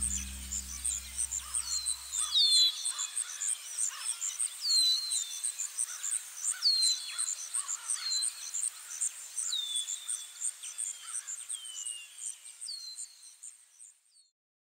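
Birds calling with short, downward-sliding whistles every second or two over an even, rhythmic chirping of insects. A low music note dies away in the first couple of seconds, and the whole ambience fades out near the end.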